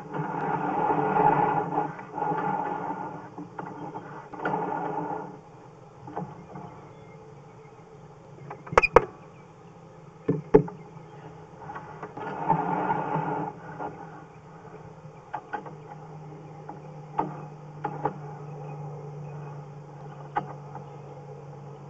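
Sewer inspection camera's push cable being drawn back through the pipe and onto its reel: several bursts of mechanical noise, a few sharp clicks, and a low steady hum that starts about two-thirds of the way in.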